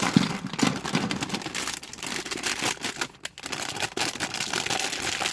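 Plastic parts bag crinkling while small Playmobil plastic pieces are tipped out and handled, clicking and rattling against each other, with a short lull about three seconds in.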